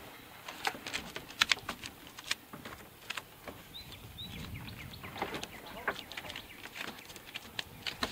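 Scattered, irregular knocks and clicks of a wooden cupola being pushed and balanced on a roof rail by hand, with a couple of short bird chirps about four seconds in.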